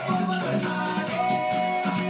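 Upbeat Caribbean dance music with a steady beat.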